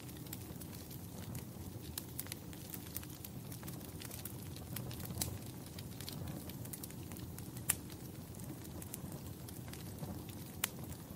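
Wood fire burning in a fireplace: a steady low rumble of the flames with scattered sharp crackles and pops, two louder pops near the end.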